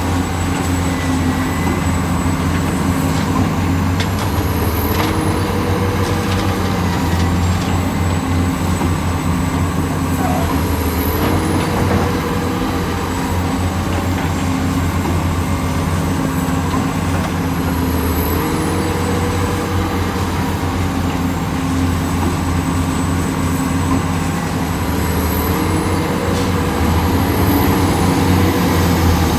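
Heavy excavator's diesel engine running under load. Its pitch steps up and down every six or seven seconds through repeated dig-and-load cycles, with a few knocks and a faint high chirp recurring in step.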